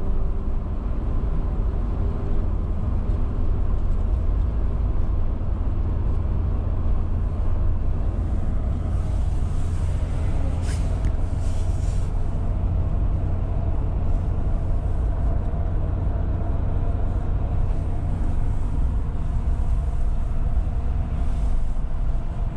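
A car driving along the road: a steady low rumble of engine and road noise that holds unchanged throughout.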